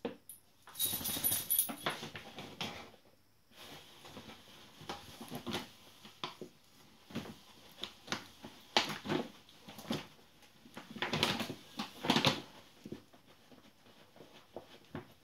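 A small dog nosing and burrowing into a large, emptied dog-food sack, which crinkles and rustles in irregular bursts. The loudest bursts come about a second in and again around nine and twelve seconds in.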